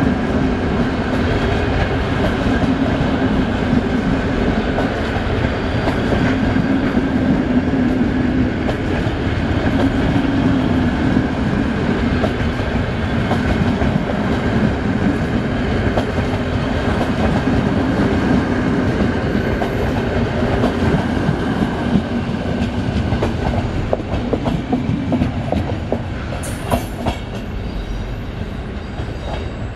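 Train of grey vintage passenger coaches rolling past at close range: a steady rumble of wheels on rail with clickety-clack over the rail joints. A few sharp clicks come near the end.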